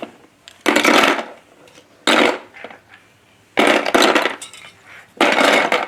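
Pieces of a toy tool set clattering and rattling as they are handled and put away, in four separate bursts about a second and a half apart.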